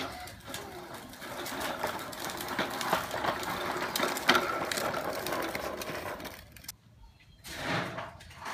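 Hard plastic wheels of a child's ride-on tricycle rolling over a concrete patio, a continuous clattering rattle with many small clicks that stops about two-thirds of the way through.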